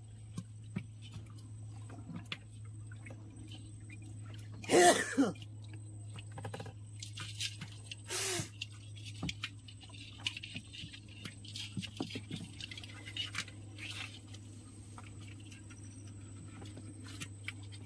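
Two short cough-like sounds from a person, the louder one about five seconds in and the second about three seconds later. Small scattered clicks and a steady low hum run underneath.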